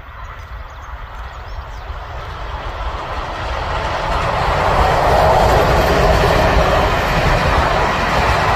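A passenger train hauled by two diesel locomotives approaches and passes. The engine and rail noise grows steadily louder over the first five seconds, then holds steady as the coaches roll by.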